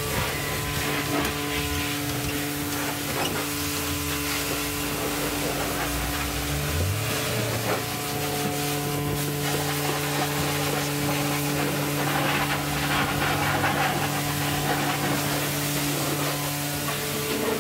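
A steady low hum over an even hiss.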